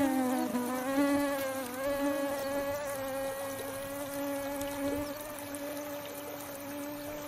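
Flying insect buzzing close to the microphone in one steady, slightly wavering drone that slowly fades.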